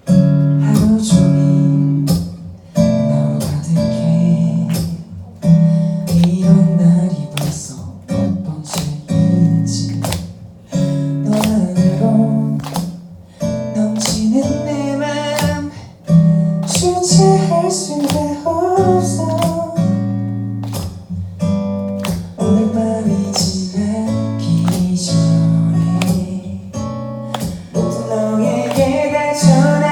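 Live band music led by strummed guitar chords with sharp percussive hits, starting suddenly. A melody line enters about halfway through.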